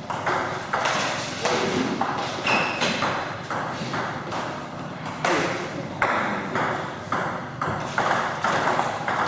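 Table tennis ball clicking off rackets and the table in a rally, a steady run of sharp clicks about three a second.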